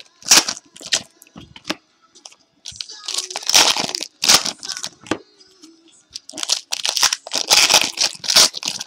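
Trading-card pack wrappers being torn and crinkled by hand, in several short bursts with quiet gaps between.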